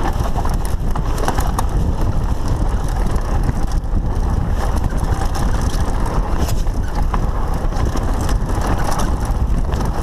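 Lapierre Spicy 316 mountain bike running fast down a rough dirt downhill track: a steady low rumble of tyres and suspension, with many small clicks and knocks from the chain and frame over the bumps.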